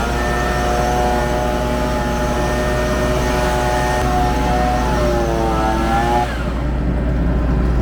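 Combine harvester engine running steadily: a low drone under a pitched whine that dips and then rises about five seconds in, after which the whine fades.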